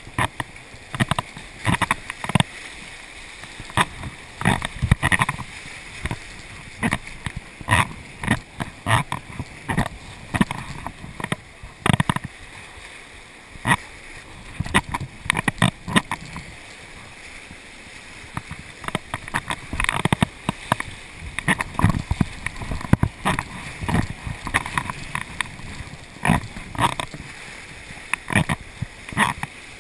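Whitewater rapids rushing steadily around a kayak, broken by frequent sharp, irregular splashes as waves break over the boat and paddle.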